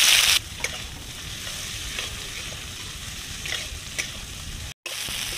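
Sliced onions frying lightly in hot mustard oil in a metal kadai, sizzling, as a flat spatula stirs them with a few scrapes and taps against the pan. The sizzle is loud for the first half-second, then drops to a softer hiss, and cuts out for an instant near the end.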